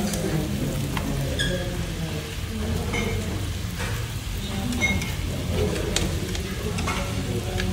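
Meat sizzling on a hot Korean barbecue grill pan, a steady frying hiss, with scattered clicks and clinks of tongs and chopsticks against the pan and plates.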